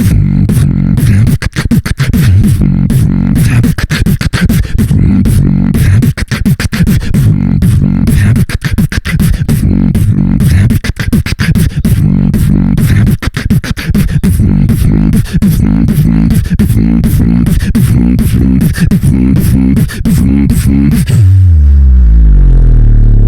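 Human beatboxing: fast mouth-made kick, snare and hi-hat clicks over a heavy, pulsing bass line. Near the end it finishes on a deep bass note that slides downward.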